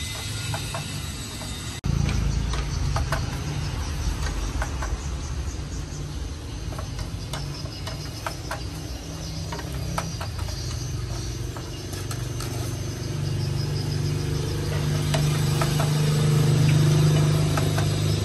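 Metal utensils clicking and scraping against a metal frying pan as meatballs in sauce are stirred, over a steady low rumble. A low hum grows louder after about two-thirds of the way in.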